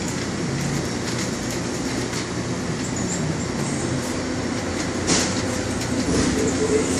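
Steady rumbling background noise of a grocery store interior, with a short knock about five seconds in.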